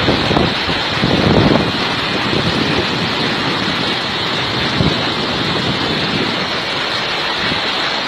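Mountain stream rushing over rocks in a steady roar of water, with wind gusting on the microphone.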